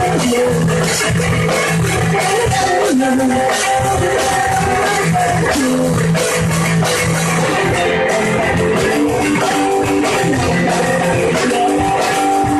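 Loud rock music led by guitar, playing steadily without a break.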